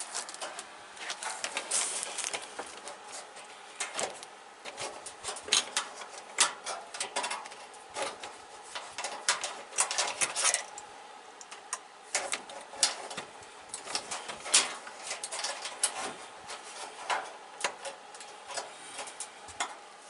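Irregular clicks, taps and rattles of hands handling wire connectors and the plastic and sheet-metal parts inside an opened-up dryer.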